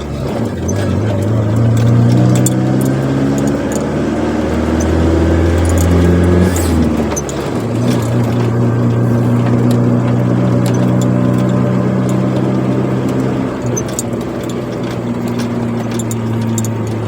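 Chevrolet Corsa Wind's four-cylinder engine pulling through a sport exhaust: the revs climb gradually for about seven seconds, drop sharply at a gear change, then hold steady at cruise.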